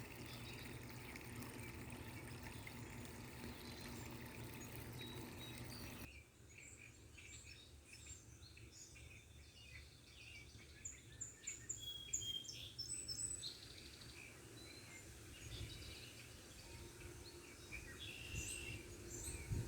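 Steady faint outdoor background noise with a low hum; about six seconds in it cuts to small birds chirping and calling, many short high chirps scattered through the rest, busiest in the middle.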